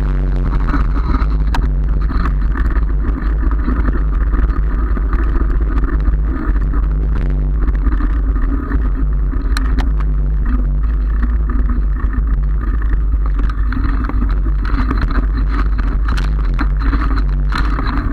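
Steady wind rumble on a handlebar-mounted camera's microphone mixed with the tyre noise of a bicycle rolling over brick paving, with a few short knocks from bumps.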